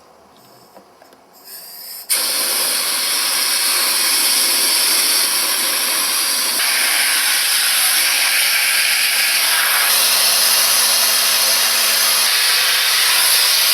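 Loud, steady hiss of compressed air, cutting in suddenly about two seconds in.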